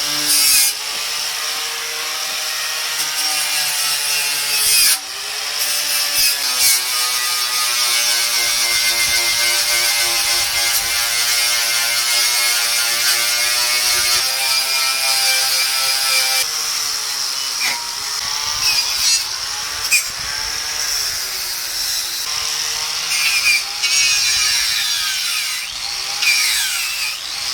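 Angle grinder with a wire wheel brush running continuously, scrubbing a metal frame; the motor's pitch sags and recovers again and again as the wheel is pressed into the metal.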